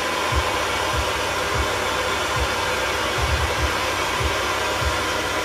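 Gas torch flame burning with a steady hiss as glass is worked into beads, with soft low thumps now and then.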